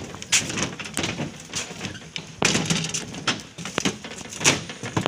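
A suspension footbridge knocking and rattling irregularly as people move on it, with the loudest knocks about halfway through and near the end.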